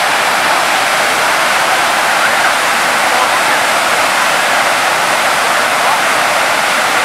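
Steady rushing of a broad river waterfall pouring over a rock ledge in full white water.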